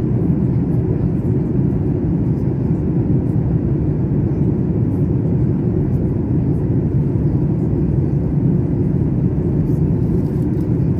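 Steady low rumble of a Boeing 737 airliner's cabin in flight: engine and airflow noise heard from a window seat over the wing.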